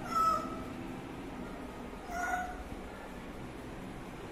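Cat meowing twice: a short meow right at the start and another about two seconds in.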